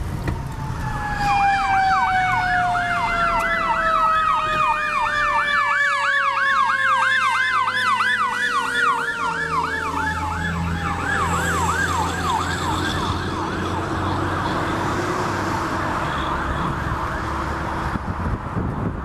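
Fire engine sirens on an emergency run: an electronic siren yelping about three times a second over the long falling wail of a Federal Q mechanical siren coasting down. A low engine rumble comes in as the pumper passes about ten seconds in, and the yelp then fades.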